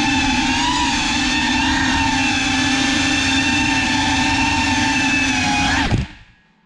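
GEPRC CineLog 35 cinewhoop's brushless motors and ducted propellers whining steadily in flight, with a buzzing undertone. About six seconds in the pitch drops and the motors spin down and stop suddenly as the drone settles on the floor.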